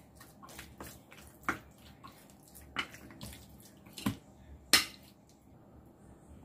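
Spoon mixing raw marinated chicken strips in a stainless steel bowl: soft wet squishing with a few sharp clinks of the spoon against the bowl, the loudest one late on.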